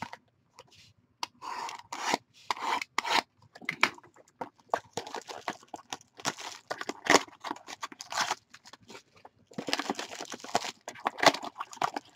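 Clear cellophane shrink wrap being torn and peeled off a sealed box of basketball trading cards: irregular crackling and tearing in spurts, beginning about a second in.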